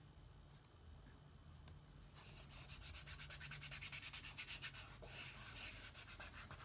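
Rapid back-and-forth scraping of an applicator pushing chalk paste through a silk-screen transfer onto a small wooden tag. The strokes start about two seconds in and come about five a second.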